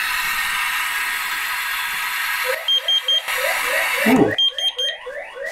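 Tap water running onto a water leak sensor. About two and a half seconds in, the XSense leak alarm goes off at detecting the water: three short high beeps, then rapidly repeating rising siren sweeps, with three more beeps near the end.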